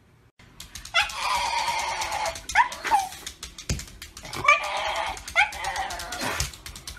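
Black-and-tan Shiba Inu vocalizing from about half a second in: long, drawn-out whining calls broken by short upward yelps.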